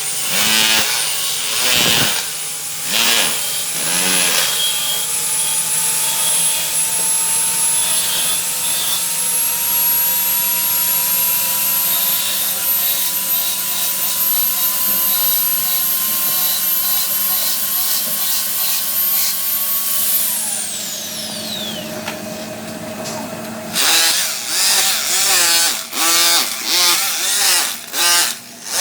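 Electric power tool running with a high whine that climbs slowly in pitch, then switched off about 20 seconds in and spinning down. Busier, broken-up sound follows for the last few seconds.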